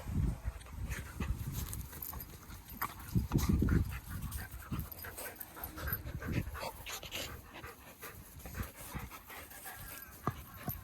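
Dog panting in short irregular puffs, with scattered light clicks.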